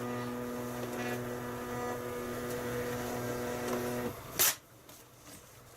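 Zebra LP2844 thermal label printer printing a label: its feed motor gives a steady whine that stops about four seconds in, followed by a short sharp rustle.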